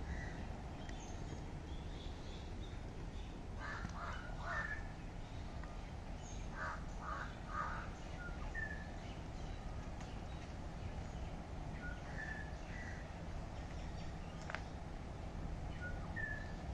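Crows cawing in two quick runs of three caws, about four seconds in and again about seven seconds in, with short high bird chirps scattered throughout over a steady low outdoor rumble.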